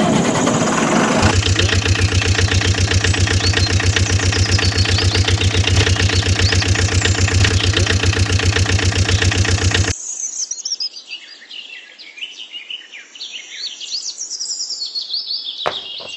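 An engine starting, then idling with a steady rapid chug that cuts off suddenly about ten seconds in. It is followed by birds chirping.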